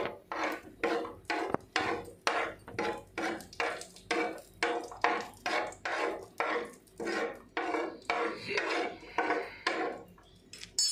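Stirring in a frying pan: a utensil scraping the pan in quick, even strokes, about two or three a second, turning cashews and almonds frying in ghee over a high flame. The stirring stops near the end.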